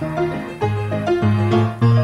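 Background music: a bright keyboard tune with notes changing every quarter to half second over a bouncing bass line.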